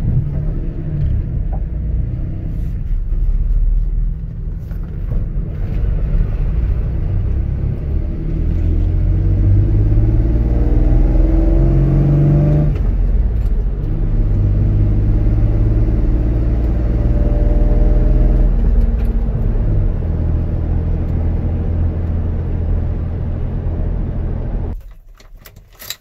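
Inside the cab of a 1997 Ford F-150 pickup under way at about 30 mph: steady engine and road noise. The engine note climbs, then drops suddenly about halfway through, and the sound falls away sharply near the end as the truck comes to a stop.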